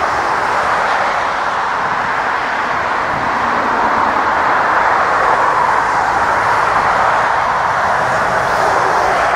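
Jet engines of an Embraer E-Jet regional airliner running as it rolls along the runway: a steady, even rush of engine noise.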